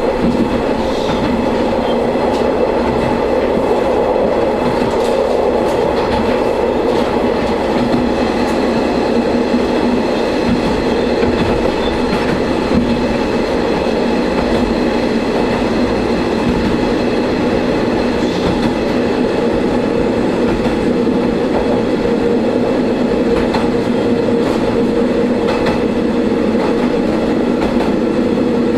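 Diesel railcar running along the track, heard from inside the car: a steady engine drone over wheel and rail noise, with occasional faint clicks.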